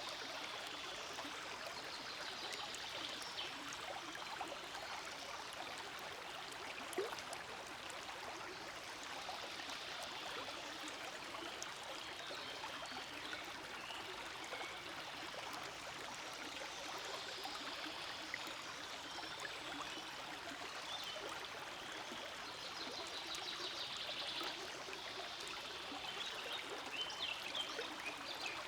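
Forest stream flowing, a steady rush of running water without pause.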